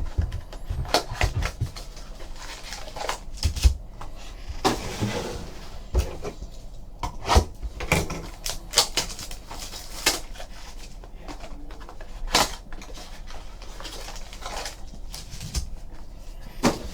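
Handling of trading-card packaging: irregular taps, clicks and short rustles as a box and packs are handled and opened.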